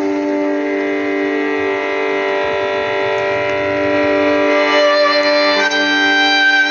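Slow music with long held, string-like notes, swelling gradually, with a change of chord about five seconds in.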